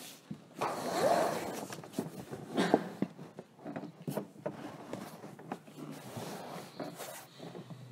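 Handling noise from a tabletop microphone being picked up and moved across a table: rubbing and rustling, then scattered knocks and clicks, the loudest bump about two and a half seconds in.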